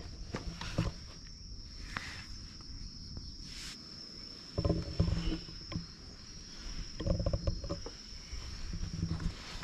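A steady high-pitched insect drone, with bursts of close rustling and bumping from clothing and camera handling about halfway through and again near the end.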